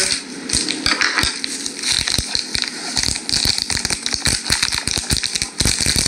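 Dense, irregular crackling and popping over a steady hiss, many small clicks a second with no regular rhythm.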